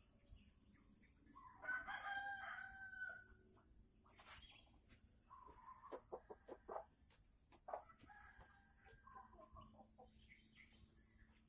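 Sumatran red junglefowl calling faintly. A drawn-out call comes about two seconds in, then a quick run of clucks and cackling calls in the second half. The hen's cackling is the sign that she is about to lay.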